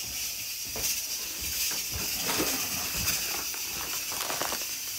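Light rustles and soft knocks as a bag of masa meal is handled, over a steady hiss.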